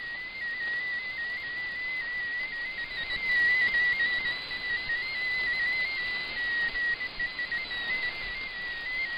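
MFSK16 digital text signal heard through a shortwave receiver: a single high tone hopping rapidly between closely spaced pitches, over steady static hiss. The tone sequence carries Japanese text, being decoded character by character.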